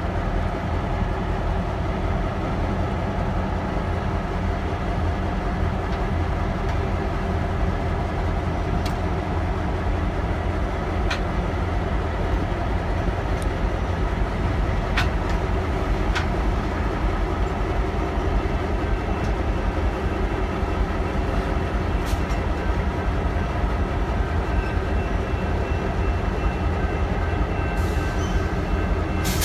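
Norfolk Southern diesel-electric locomotives running as they roll slowly past: a steady engine rumble, with a few sharp clicks now and then.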